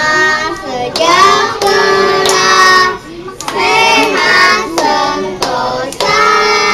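A girl singing into a handheld microphone, holding long sung notes, with a short break about three seconds in. Hand claps come through now and then.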